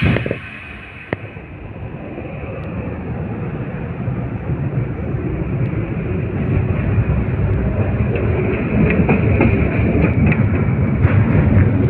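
LVS-86K tram running along the track, heard through an open vent window: a rumble of wheels on rails that grows steadily louder. There is a single sharp click about a second in.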